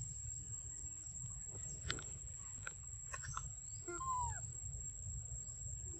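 Outdoor ambience: low wind rumble on the microphone, a steady high-pitched whine, a few small clicks, and one short arching animal call about four seconds in.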